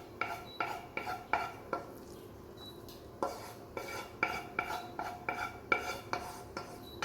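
A metal utensil repeatedly knocking and scraping against a cooking pan, each knock leaving a short ringing, as scrambled egg is scraped out of the pan; two runs of knocks with a pause of about a second and a half between them.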